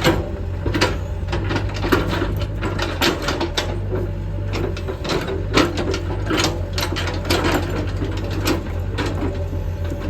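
Sany SY75C excavator's diesel engine running steadily, with irregular clanks and knocks from the machine throughout.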